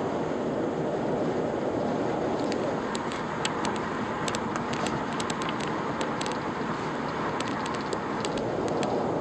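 Steady road and wind noise inside a Lexus sedan's cabin at highway speed, with the engine turning about 2,000 rpm. A scatter of light ticks runs through the middle.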